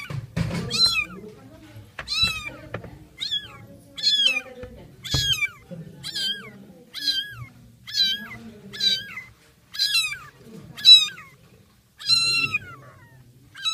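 Very young kitten mewing over and over: short, high-pitched calls about one a second, each dropping in pitch at its end, with a few low knocks near the start and about five seconds in.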